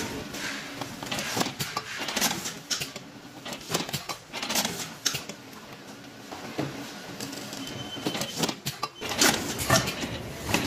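Sunpack WK04CA-MP automatic banding machine running on a toothpaste box line: irregular mechanical clicks and clatter as it bands boxes, with a faint high steady tone at the start and again near the end.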